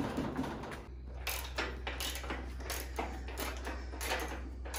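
Hand ratchet wrench clicking in a run of short strokes, about three a second, over a steady low hum.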